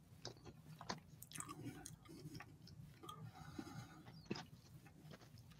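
Faint chewing of a mouthful of burrito: scattered soft wet clicks and smacks.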